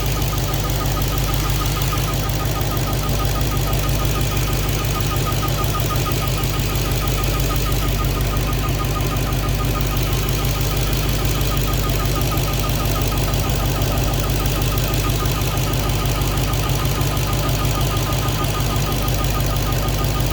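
Dodge Charger Hellcat Redeye's supercharged 6.2-litre HEMI V8 idling, with a fast, evenly repeating high chirp like a bird chirping under the hood. The owner doubts it comes from the drive belt; others have blamed the torque converter.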